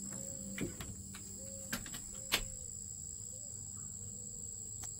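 Steady high-pitched drone of an evening insect chorus, with a few short sharp clicks, the loudest a little past two seconds in.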